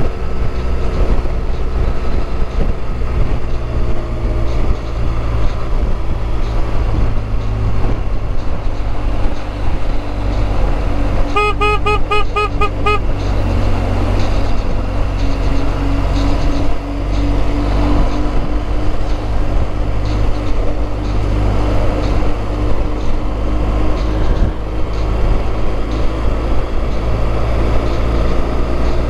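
BMW R1200GS flat-twin engine and wind noise riding at highway speed, a steady low rumble. A little under halfway through, a horn sounds as a quick series of short beeps, about eight a second for a second and a half.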